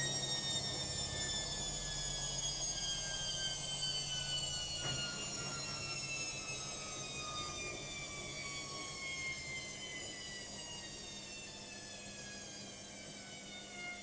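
Logik front-loading washing machine winding down from its spin: the motor's whine falls steadily in pitch and fades as the drum slows.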